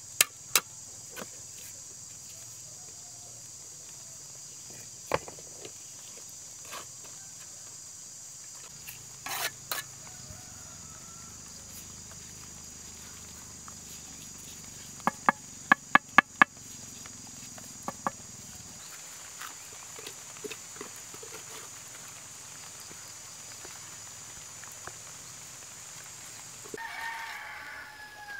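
A rooster crows once near the end, with other chicken calls, over a steady high insect drone that stops just before the crow. Sharp knocks and taps are scattered through, including a quick run of about half a dozen in about a second and a half.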